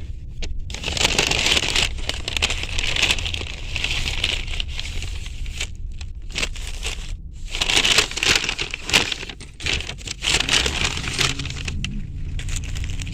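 Food packaging being handled, crinkling and rustling in irregular bursts with a couple of short pauses, over a steady low hum.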